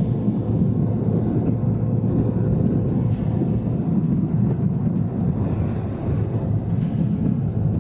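Steady low rumble of wind and road noise on a camera riding on a motorcycle at highway speed.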